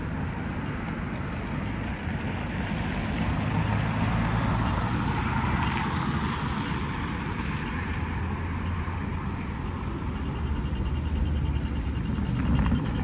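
Street traffic: motor vehicles running past with a low engine rumble and road noise, swelling around the middle.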